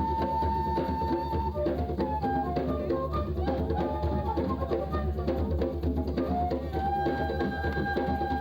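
Music: busy drums and percussion under a melody of long held notes, one near the start and another near the end.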